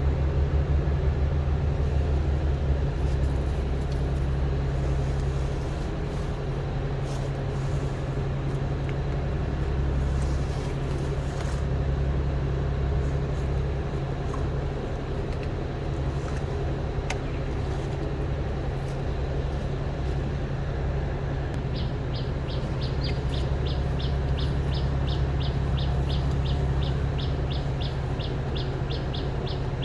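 Steady low motor hum throughout. About two-thirds of the way in, a rapid, regular high chirping or beeping joins it, about three to four a second.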